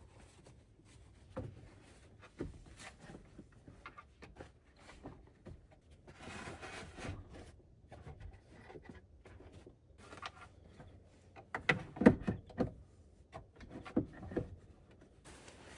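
Scattered knocks, clicks and rubbing, as of gear being handled and set down, with a cluster of louder thumps about twelve seconds in and two more about two seconds later.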